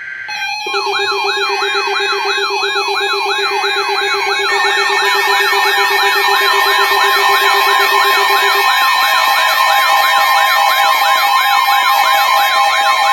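Electronic alert siren: several layered siren tones, one wailing up and down about three times a second over steady tones. It builds in loudness over the first few seconds, and a low steady tone under it drops out about two thirds of the way through. It signals the start of a new emergency weather alert.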